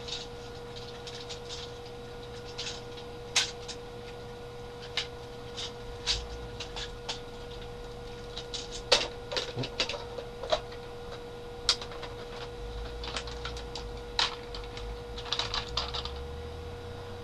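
Irregular plastic clicks and snaps as a G2 Laser Rod Optimus Prime Transformers toy is transformed by hand, its parts and joints moved and clicked into place, over a faint steady hum.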